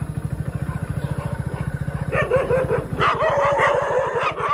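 A motorcycle engine running with a steady fast putter. About two seconds in, dogs start barking and yelping in quick repeated calls, which are louder than the engine.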